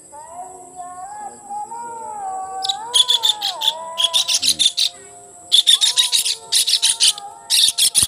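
A kingfisher caught in a net trap over a fish pond gives about five bouts of harsh, rapid chattering calls from about three seconds in. Before them there is a wavering whistle-like tone.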